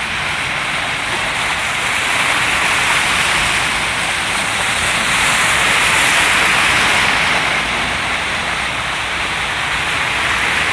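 Car tyres driving through floodwater on a street, a steady hiss of churned water and spray that swells a couple of times as vehicles pass.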